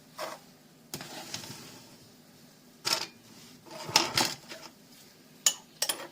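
Glassware and kitchen utensils knocking and clinking as they are handled, about six separate short knocks with the loudest cluster a little past the middle.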